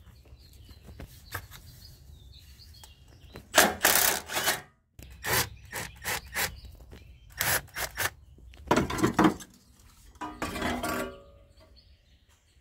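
Aftermarket cold air intake being loosened and pulled off the engine: a string of short scraping and rubbing bursts as the clamp is undone and the metal tube and rubber coupler are worked free. The loudest burst comes about four seconds in.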